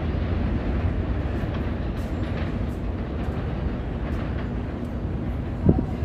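An elevated New York City Subway 7 train of R188 cars rumbling along the tracks as it pulls away, growing slowly fainter, with one brief louder knock near the end.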